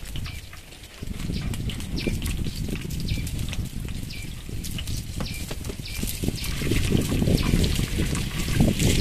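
Dried fish frying in a pan of hot oil outdoors, crackling, with wind rumbling on the microphone. The sound jumps up about a second in and the wind noise grows stronger in the second half.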